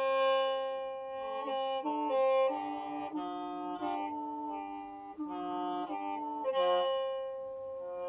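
Qeej, the Hmong free-reed bamboo mouth organ, being played: several reed pipes sound together as chords of held notes over a steady lower drone, the upper notes shifting every half second or so.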